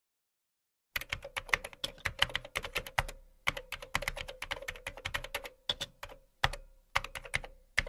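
Computer keyboard typing: quick, irregular keystroke clicks in runs, starting about a second in after dead silence, with short pauses between bursts.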